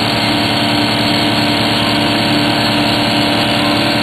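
Air compressor running steadily with an even mechanical hum while it builds tank pressure.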